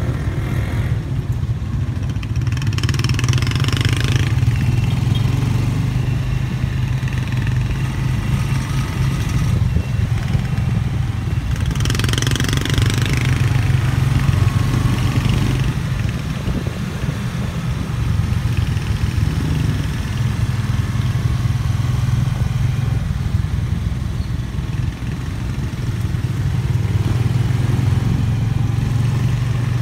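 Motorcycle engine of a tricycle (motorcycle with sidecar) running steadily under way, heard from inside the sidecar as a low, even drone. A hiss swells briefly about three seconds in and again about twelve seconds in.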